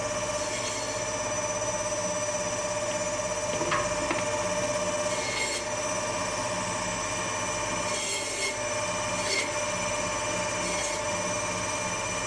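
Electric meat band saw running with a steady whine, with a few short rasps as bone-in meat is pushed through the blade.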